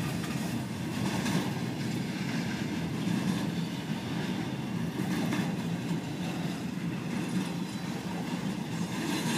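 Freight cars of an intermodal container train rolling past, wheels clacking over rail joints every second or two over a steady rumble and hiss.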